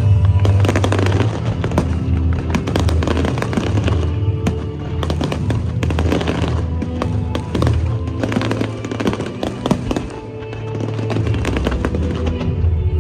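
Aerial fireworks crackling and popping in dense volleys, with music playing underneath; the crackle thins out near the end.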